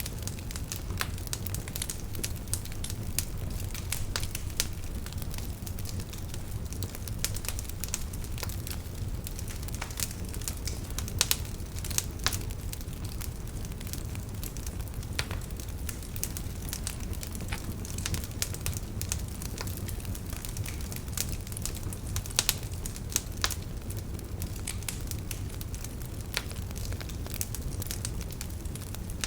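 Wood fire burning in a fireplace: a steady low rumble of flames with irregular sharp crackles and pops, a few louder snaps among them.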